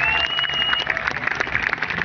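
Crowd applauding, a dense patter of many hands clapping. A thin high tone sounds over it during the first second.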